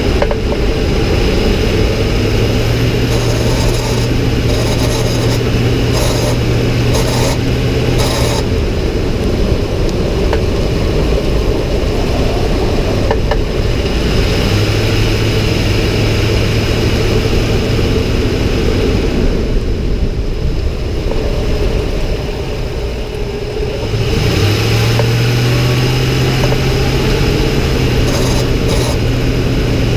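2006 Ford F-150 driving, with a steady rumble underneath. A low drone comes in three times, a couple of seconds in, about halfway, and for the last few seconds, and drops out in between. This is the noise the owner hears only on the throttle, starting around 1200 rpm and growing with throttle and speed; its cause is unknown.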